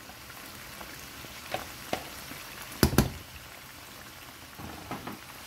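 Pan of spinach, crab and meat stew simmering with a steady bubbling, and a few light clicks. About three seconds in come two sharp knocks close together.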